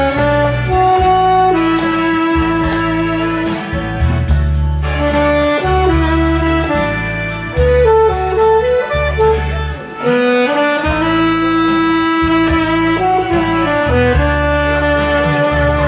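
Instrumental break of a Korean pop song: a lead melody line of long held notes over a pulsing bass and a steady beat, with no vocal.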